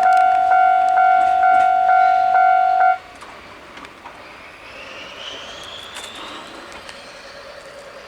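Japanese level-crossing warning bell ringing its rapid electronic ding, about two strikes a second, then cutting off suddenly about three seconds in. A much fainter rising whine follows.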